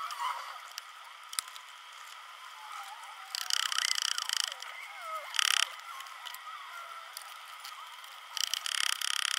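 Air hissing at a bicycle tyre valve in short bursts, three times, the last in quick pulses, as the inner tube is let down and shifted so the crooked valve stands straight.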